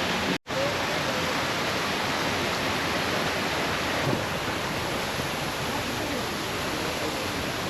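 Steady rush of flowing water, with a brief dropout about half a second in.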